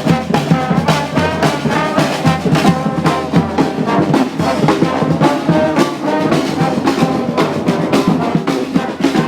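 Street brass band playing: several horns sounding a moving tune over a steady drum beat.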